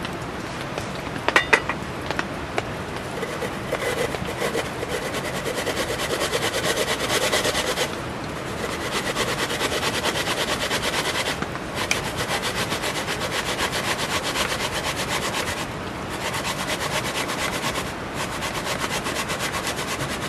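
Hand saw cutting through wood, a steady run of rasping back-and-forth strokes in spells of a few seconds with short pauses between them. A few sharp knocks come about a second and a half in.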